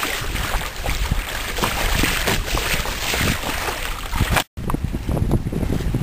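Water rushing and splashing along the hull of a sailboat under way, a dense steady hiss. About four and a half seconds in it cuts off abruptly and is replaced by wind buffeting the microphone, with small waves splashing.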